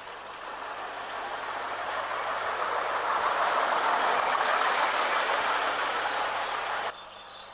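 Double-decker bus driving past at close range: its engine and tyre noise grows to a peak as it goes by, then cuts off abruptly near the end.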